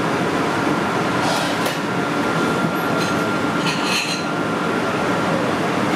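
Steady rushing background noise with a thin steady whistle. A few light clicks and scrapes come from a metal ball scoop hollowing tofu blocks and touching the plate, about a second and a half in and again about four seconds in.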